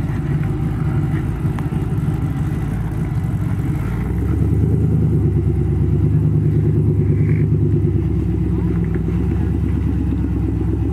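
Rock-crawling buggy's engine running under load while climbing rock. It gets louder and steadier about four seconds in.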